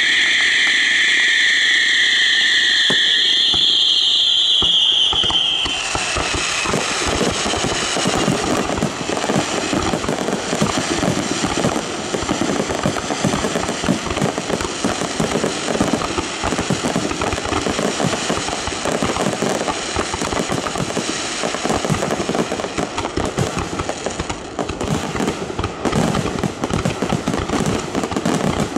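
A fireworks barrage: many aerial shells bursting in quick, irregular succession, a dense run of bangs and crackle that builds from about six seconds in. Over the first few seconds two high steady tones sound, stopping about three and five seconds in.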